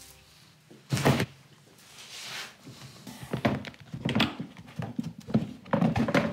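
A loud thunk about a second in, then a brief rustle and a run of short knocks and clicks as a briefcase on a table is handled and its flap worked open.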